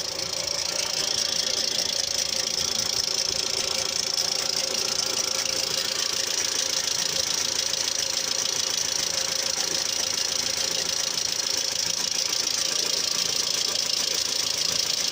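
Mitsubishi Outlander III engine idling under an open hood with a steady, rapid, high-pitched scraping chatter. The owner describes it as something rotating catching on a half-peeled strip of paper. It is a foreign noise from under the hood of unknown origin, which comes on a couple of minutes after start-up and lasts several minutes.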